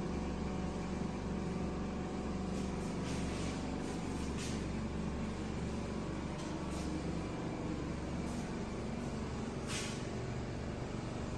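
A steady low mechanical hum with a few faint clicks, easing off slightly partway through.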